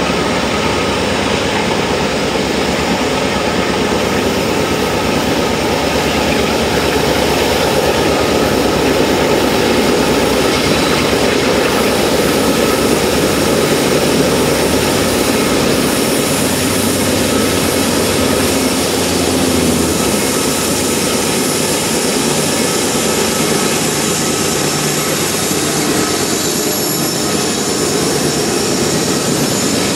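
Union Pacific diesel-electric locomotives pulling a loaded eastbound coal train up Kirkwood hill, their engines working under load as they pass close by. The engine noise is loud and steady.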